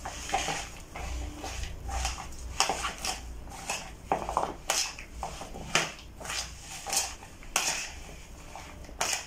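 A utensil scraping and clicking against a plastic bowl as chopped mango salsa is tossed and mixed, in irregular strokes.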